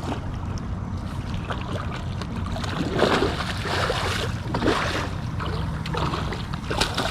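Wind buffeting the microphone over water sloshing around a small fishing boat, with a steady low hum underneath. A few louder rushes of noise come about three and four and a half seconds in.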